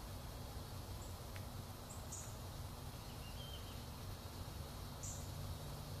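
Faint outdoor ambience: a steady low rumble, with a few brief, very high chirps about one, two and five seconds in and a short warbling chirp around three seconds in.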